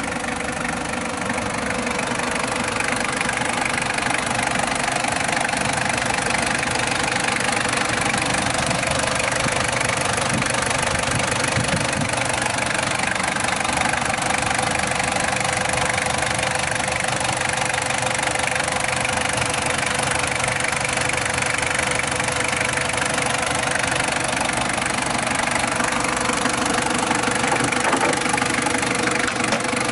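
Toyota Land Cruiser Prado's 1KZ-TE 3.0-litre four-cylinder turbo diesel idling steadily, heard close up under the open hood.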